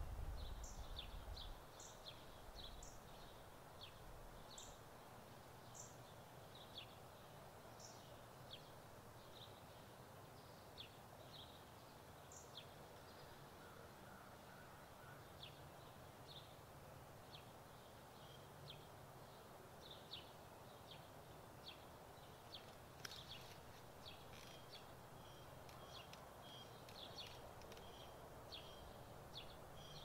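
Faint outdoor ambience of wild birds chirping: many short, high chirps scattered throughout and busier in the second half, over a soft steady rustle of wind in the trees. A low wind rumble fades out in the first second or two.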